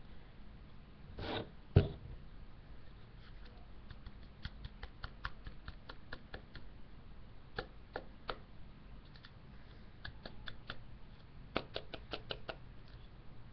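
Light scraping and scattered small clicks and ticks as powdered eyeshadow pigment is scraped and tapped off a small tray into a stone mortar, with one sharp knock about two seconds in.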